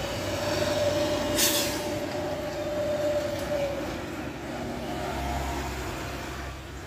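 Trucks passing on the road: engines and tyres going by. A steady whine runs through the first half, and a short hiss comes about a second and a half in.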